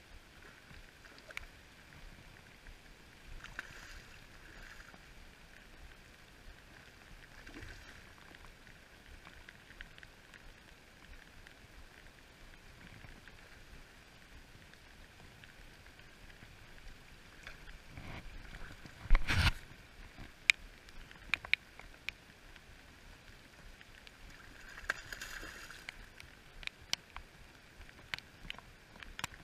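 Rain falling on a river: a steady faint hiss with scattered sharp ticks of drops striking the camera. About two-thirds of the way through comes one loud burst of noise lasting about half a second.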